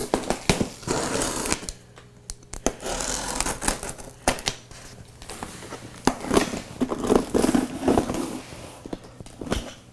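Packing tape and plastic wrap on a cardboard box being slit with a hand cutting tool: irregular scraping, tearing and crackling with scattered clicks.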